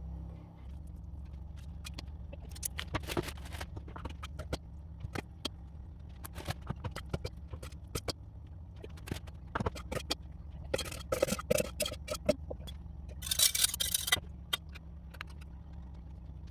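Kitchen food-preparation sounds: scattered clicks and knocks of utensils and containers, with two louder scraping stretches about eleven and thirteen seconds in, over a steady low hum.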